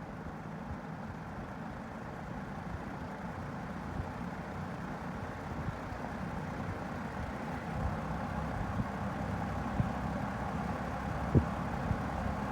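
Vintage Sears Kenmore 20-inch box fan running, a steady rush of air with a low motor hum, growing gradually louder, with a couple of faint knocks near the end.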